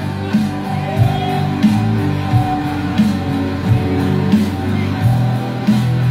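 A live rock band playing: a drum kit keeps a steady beat of about one and a half strokes a second under sustained electric guitar and low notes.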